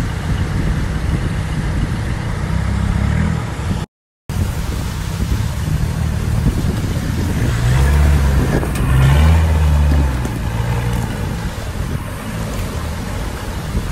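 Land Rover diesel engine working under load as the 4x4 climbs a rocky stream bed, revving up to its loudest about eight to ten seconds in before easing back. The sound cuts out completely for a moment about four seconds in.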